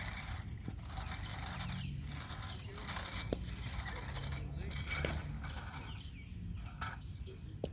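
Loose clay being rubbed and scraped hard into the surface of a cricket pitch, in repeated gritty strokes about once a second, with a few sharp clicks.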